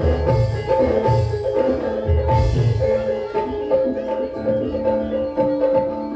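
Javanese gamelan-style music: bronze mallet instruments ringing held notes over deep drum strokes that come about once a second.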